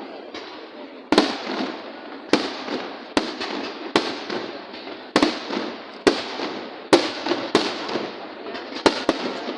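Fireworks display: aerial shells bursting with about ten sharp bangs, roughly one a second, each fading into crackling and rumble that fills the gaps between them.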